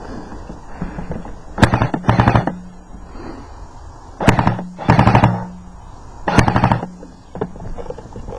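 Airsoft gun firing short full-auto bursts of rapid clicks with a hum under each: two bursts, then two more, then a single one.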